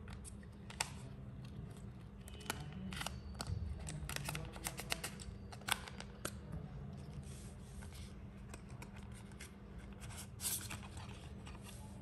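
White paper packing of an Apple MagSafe charger being handled and pulled apart, crackling and rustling with many small irregular clicks as the charger and its coiled cable are freed from the tray.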